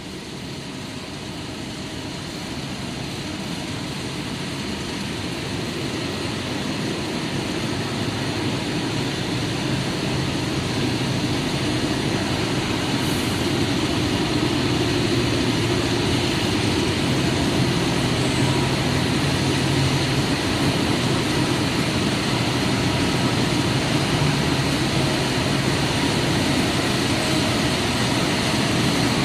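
Steady industrial machinery noise with a faint hum, growing gradually louder over the first half and then holding steady.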